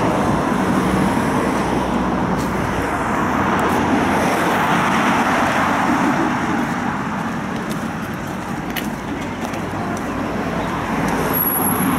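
City road traffic: cars passing on the street, a continuous rush of tyres and engines that swells around the middle and eases off after.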